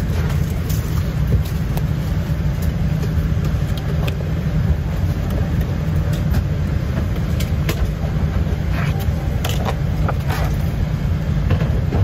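Steady low rumble of a Boeing 787-8 passenger cabin, with scattered clicks and paper rustles as a folded safety card is handled.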